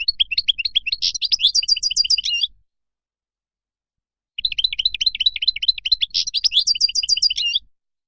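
European goldfinch singing its wild-type song: two fast twittering phrases of quick chirps and trills, each about three seconds long, with a silent gap of about two seconds between them.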